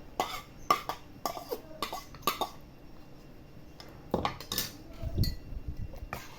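Cutlery clinking and knocking against dishes during a meal: a quick run of sharp clinks, a pause of about a second and a half, then more.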